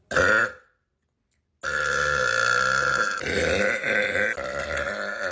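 A woman burping: a short burp, then after a brief gap a long drawn-out burp lasting about four seconds that shifts in pitch partway through.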